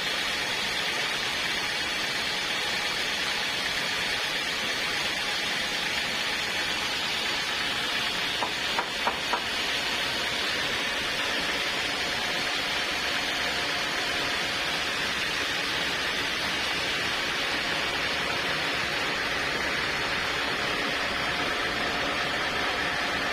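Portable sawmill running steadily with a continuous hissing noise, broken by three quick knocks about nine seconds in.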